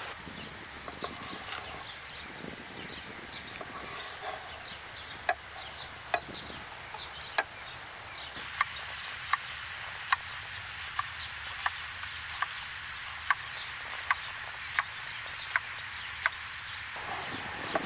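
Chef's knife cutting through an onion and tapping the wooden cutting board. The sharp taps come irregularly at first, then evenly about every three-quarters of a second from about halfway in. Birds chirp faintly throughout.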